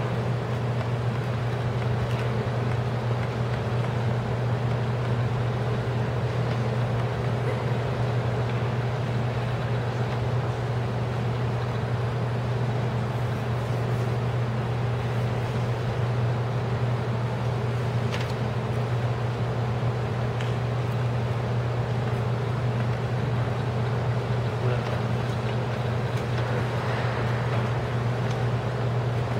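Steady low hum with an even hiss over it, a constant machine-like drone that does not change, with a faint click or two.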